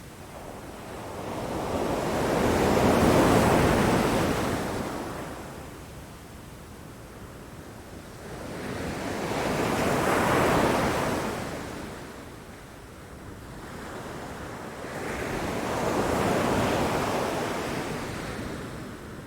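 Ocean surf: three waves roll in and break one after another, about every six or seven seconds, each swelling up and then washing away, with a low steady wash of water between them.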